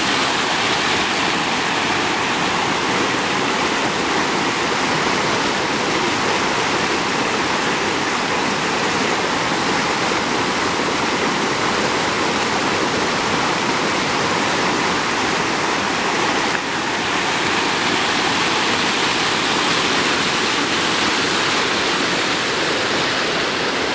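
Waterfall, heard close: a loud, steady rush of falling water, overwhelming.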